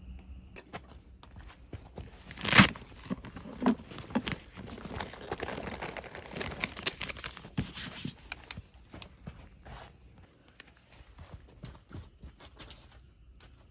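Things being handled, with rustling and crinkling like packaging and scattered light clicks. There is one sharp knock about two and a half seconds in, and the crinkling is densest around the middle before thinning to a few clicks.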